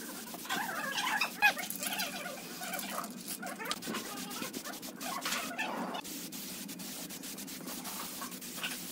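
Aerosol spray-paint can hissing as it sprays silver paint onto a steel drum. Cat-like animal cries sound over the hiss in the first couple of seconds.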